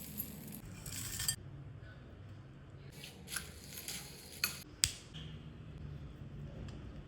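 Kitchen handling of a dry, crunchy bhel mixture: a few short bursts of rustling, and two sharp clinks of a utensil against a dish about four and a half and five seconds in.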